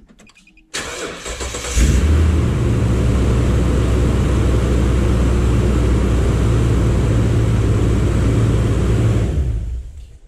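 A 2014 Toyota Tundra's engine being started on a failing battery: the starter cranks for about a second, the engine catches with a brief flare, then idles steadily. It is switched off near the end and runs down.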